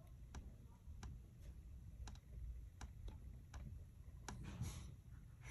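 Faint separate clicks, roughly one a second: a fingertip tapping the touchscreen of a Garmin fish-finder head unit while working through its setup menus, with a brief rustle near the end.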